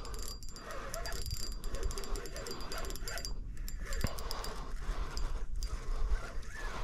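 Fishing reel ticking rapidly as a hooked bass is fought and reeled in; the dense clicking thins out about three seconds in.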